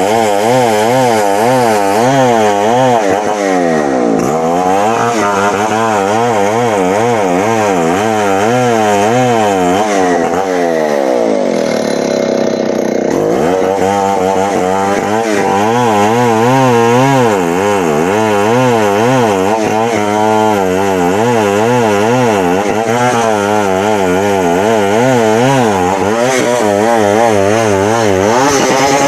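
Chainsaw engine revved up and down in quick rhythmic throttle blips, a bit more than once a second. About twelve seconds in it sinks lower for a moment, then the blipping picks up again.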